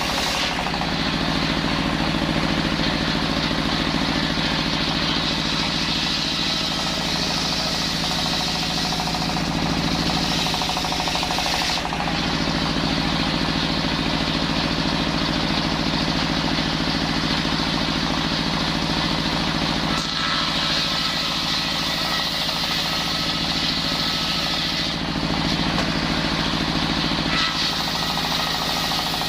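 Petrol-engined circular saw running steadily while sawing timber into rafter stock. Its note changes a few times as the load shifts.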